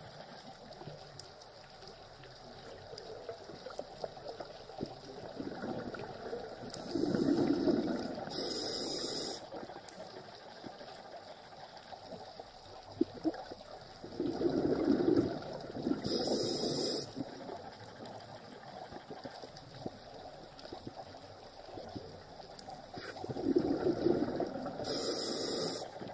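Scuba diver breathing through a regulator underwater: three breaths about eight seconds apart, each a bubbling rush of air followed by a short high hiss, over a steady faint underwater hiss.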